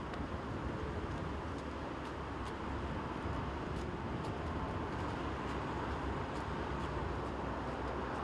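Steady distant roar of an Airbus A320's CFM56 jet engines running, over a low rumble, growing slightly louder about two to three seconds in.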